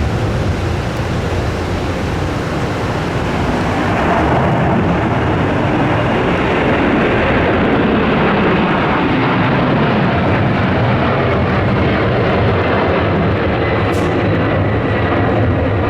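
Boeing 767-300F freighter taking off, its twin jet engines at take-off thrust making a loud, steady roar that swells slightly about four seconds in.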